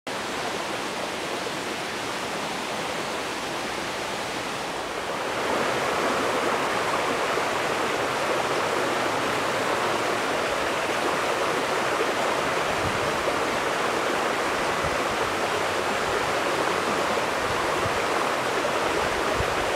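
Steady rushing noise with no tone or rhythm, stepping up in level about five seconds in.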